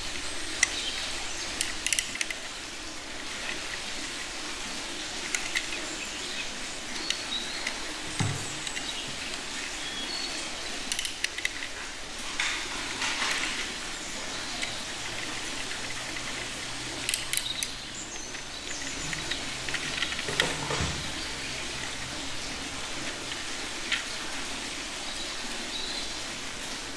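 Plastic toy excavator parts and a toy screwdriver clicking and tapping now and then as they are handled and screwed together, over a steady background hiss.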